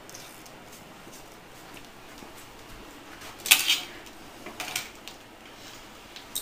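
Small metal parts clinking as they are handled: one sharp clink about three and a half seconds in, a few lighter clinks and rattles about a second later, and a small click near the end.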